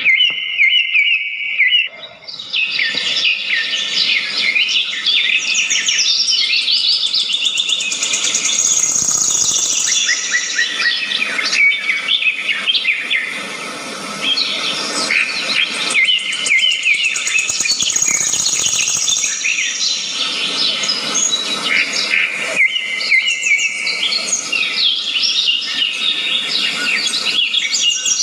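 A dense chorus of many songbirds chirping and twittering at once, with quick overlapping high-pitched calls and trills throughout.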